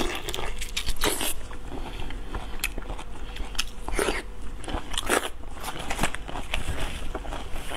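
Close-up eating sounds of marinated prawns: wet sucking and biting on the prawns with crisp crackles and clicks from the shells, in short loud bursts between quieter chewing.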